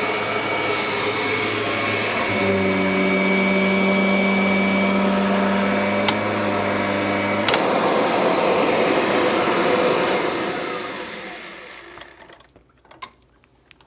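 Vacuum cleaner running on carpet, with a steady hum joining a couple of seconds in. About seven and a half seconds in there is a click, and the motor then winds down, falling in pitch until it fades out, leaving a few faint clicks.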